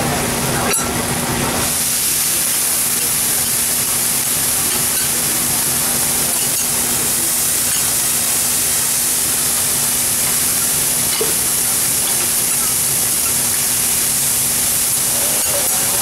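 Bean sprouts hissing and steaming on a hot steel teppanyaki griddle. A loud, steady high hiss sets in suddenly about two seconds in as the wet food hits the hot plate.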